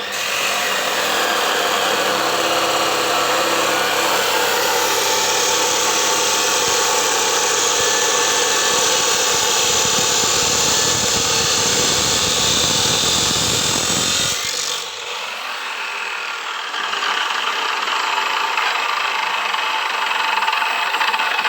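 Abrasive cut-off machine (cutting-wheel grinder) running and cutting, a loud continuous grinding. About fourteen seconds in, the sound thins out and drops in level, then rises again a couple of seconds later.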